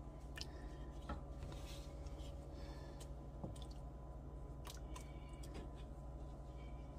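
Faint soft plops and light splashes as squares of dumpling dough are dropped one at a time into a pot of hot chicken broth, over a steady low hum.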